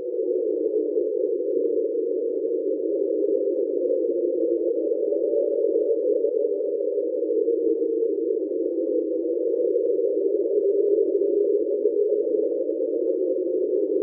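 Underwater hydrophone recording of the 'Train' sound from the Equatorial Pacific, played at normal speed rather than sped up 16 times: one steady, slightly rough drone with no breaks. NOAA believes it was likely caused by ice sheets in Antarctica.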